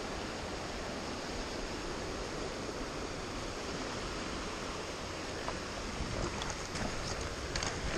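Shallow river water running steadily over rocks and riffles. A few light clicks come in over it near the end.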